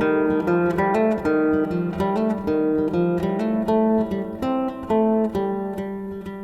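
Acoustic guitar played solo: a steady flow of picked notes and chords, several ringing together over a low repeating bass note.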